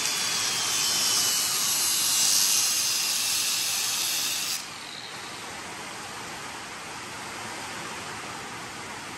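Rain coming down, heard as an even hiss. A louder, higher hiss over it cuts off suddenly about four and a half seconds in, leaving the softer rain noise.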